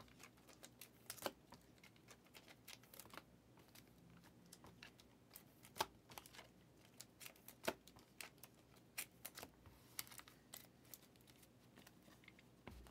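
Faint computer keyboard typing: irregular quick clicks and taps that come in clusters.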